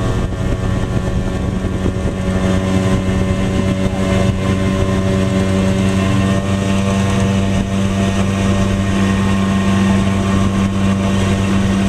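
Motorboat engine running steadily at speed, with water and wind rush around it.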